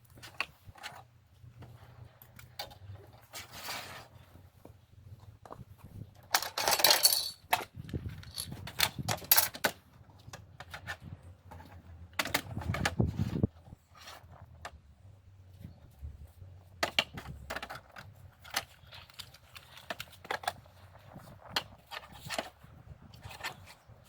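Scattered knocks, clicks and clatter of workshop handling, wood pieces and tools being set down and moved, with two short scraping bursts, one about six and a half seconds in and one about twelve seconds in.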